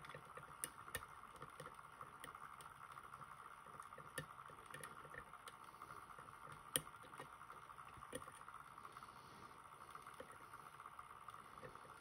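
Faint, irregular small metal clicks of a hook pick lifting the serrated side pins of a JPM Surf euro cylinder lock under tension. The sharpest click comes a little past halfway, over a faint steady background hum.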